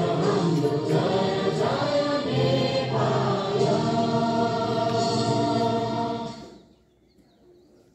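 A large group of schoolchildren singing together in unison at assembly; the song ends about six and a half seconds in.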